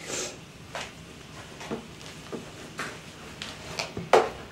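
Hands kneading yeast dough in a plastic bowl: a series of soft, irregular thuds and squelches, roughly two a second, the loudest near the end.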